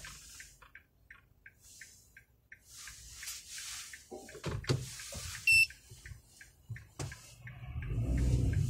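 Regular electronic ticking, about three short ticks a second, with one short sharp beep about halfway through and a low rumble of traffic or engine building near the end.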